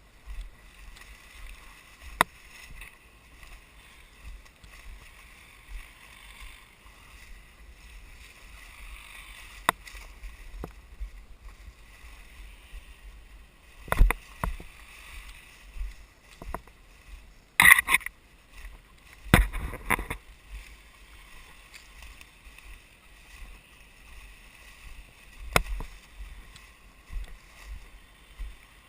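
Footsteps pushing through thick forest underbrush, with scattered sharp twig snaps and louder crashes of brush about 14, 18 and 19 to 20 seconds in, over a steady high hum.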